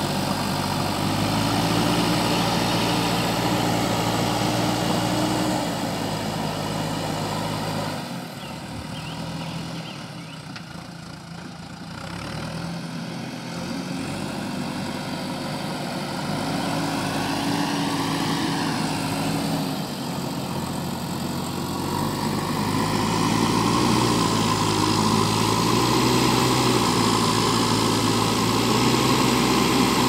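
JCB backhoe loader's diesel engine working as the front loader bucket pushes and scoops dirt, its pitch rising and falling with the load. It drops quieter for a few seconds about a third of the way in, then runs loudest near the end.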